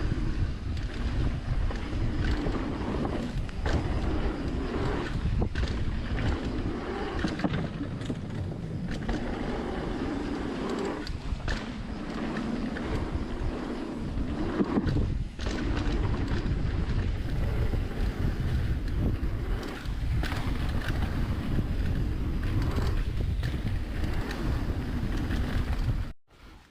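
Mountain bike running down a dirt bike-park trail, heard from a rider-mounted camera: wind buffets the microphone under a steady tyre rumble, with frequent knocks and clatters from the bike over roots and rocks. It cuts off abruptly near the end.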